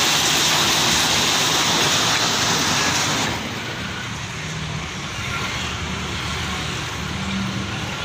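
A load of fired clay bricks sliding and clattering off a raised tipper bed in a dense rattling rush that stops abruptly about three seconds in. After that the vehicle's diesel engine runs on steadily.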